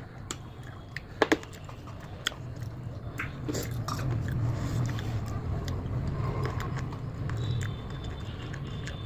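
A person biting and chewing food, with scattered short sharp clicks, the loudest about a second in, over a low steady hum.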